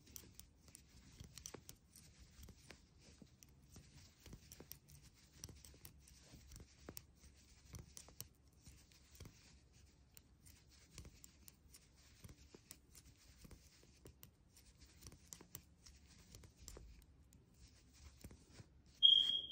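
Metal knitting needles clicking and scraping faintly, with soft rustling of wool yarn, as a row of purl stitches is knitted. Just before the end, a short, sharp high-pitched tone.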